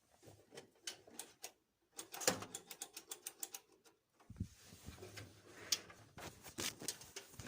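Irregular runs of small, sharp clicks and taps, at one point a quick train of about ten a second, with a few dull low knocks in between.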